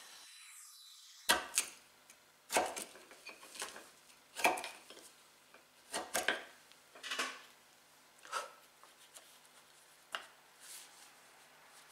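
Wood chisel chopping and paring into a solid Blackwood and Jarrah hardwood block to enlarge a hole: about a dozen short, sharp cracks, irregularly spaced, roughly one a second after the first second.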